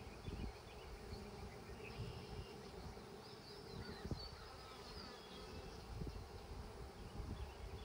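A cloud of honeybees from a newly installed package buzzing around the hive: a steady, even drone. Low, irregular gusty rumbles run underneath.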